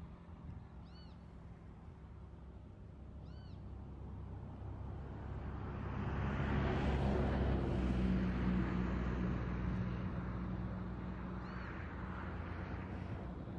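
A road vehicle passing: a low engine hum swells to its loudest about halfway through, with rushing tyre and air noise, then slowly fades. Three short, high, arched chirps come through, two early on and one near the end.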